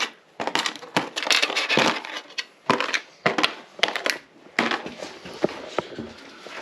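Irregular metal clanks and scrapes as the oil pan is worked loose from a Mopar 360 small block.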